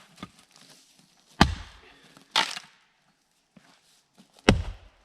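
Axe splitting dry balsam firewood: two sharp, loud strikes about three seconds apart, each with a heavy thump. A shorter, noisier crack falls about a second after the first strike.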